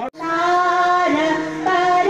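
Slow song with long held sung notes that step to a new pitch twice, starting abruptly after a short break.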